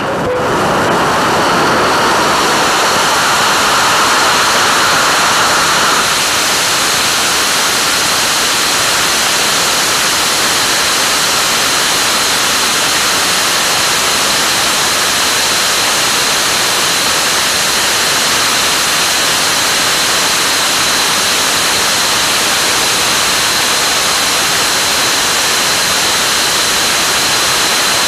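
ABLE pressure-fed, ablatively cooled liquid rocket engine, burning liquid oxygen and Jet A-1, firing on a test stand: a steady, loud rushing roar. About six seconds in the sound shifts and loses a mid-pitched edge as the liquid-oxygen flow steps from start-up flow to full flow.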